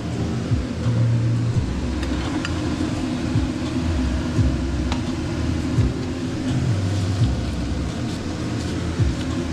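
Chuletón steak sizzling in a pan with butter, with a few sharp pops of spitting fat over a steady low hum.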